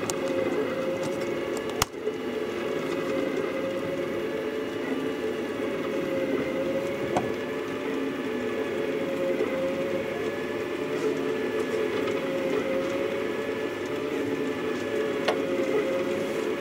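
Rostock delta 3D printer's stepper motors whining steadily as the printhead moves through a print, the pitch wavering gently with the moves. A sharp click about two seconds in.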